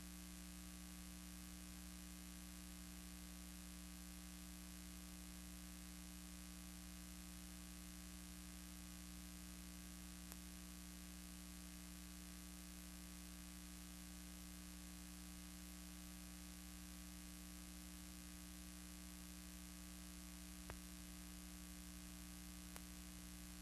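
Faint steady electrical mains hum under a low hiss, with a few faint clicks; no helicopter or engine sound is heard.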